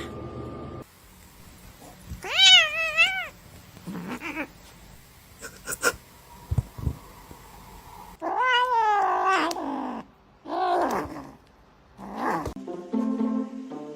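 A cat meowing: a short call with a wavering pitch about two seconds in, then a longer, drawn-out falling call around eight seconds in, followed by two shorter calls, with a few soft knocks between them. Music comes in near the end.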